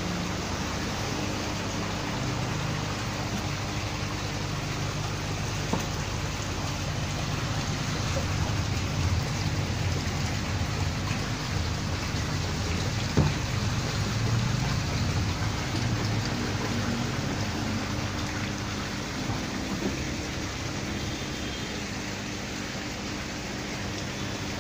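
Steady rush and spatter of water in koi holding tanks, with a low machine hum underneath and a sharp tap about thirteen seconds in.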